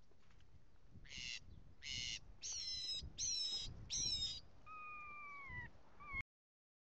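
Mockingbird singing a run of varied phrases: several short, loud notes one after another, then two long whistles that slide slightly downward. The song stops abruptly about six seconds in.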